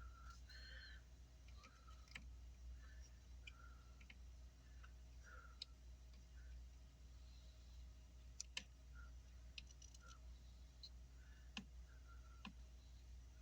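Near silence over a low steady hum, with scattered faint clicks and taps from small tools and parts being handled on an electronics repair bench. The sharpest pair of clicks comes about two-thirds of the way through.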